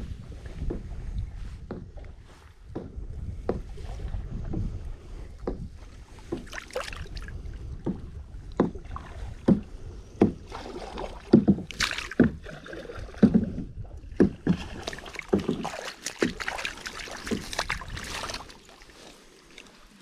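Irregular splashes, knocks and rustles of hands handling a brown trout in a landing net in shallow river water, the fish lifted out and held. The handling noises grow busier and louder through the middle and stop shortly before the end.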